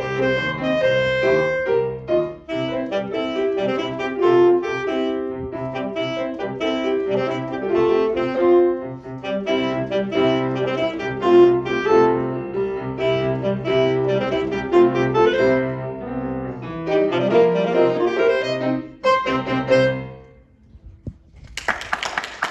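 Alto saxophone playing a lively melodic line over piano accompaniment, coming to a close about 20 seconds in. After a short pause, applause begins near the end.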